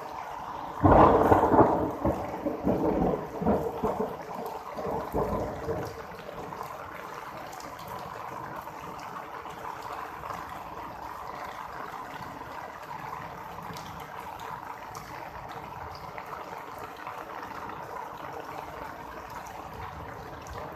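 A loud crack of thunder about a second in, rolling and rumbling away over the next five seconds, then steady rain.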